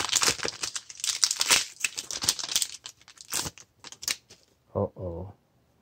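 Foil wrapper of a Pokémon booster pack being torn open and crinkled: a dense crackle for about three and a half seconds, then a few sharp single crinkles.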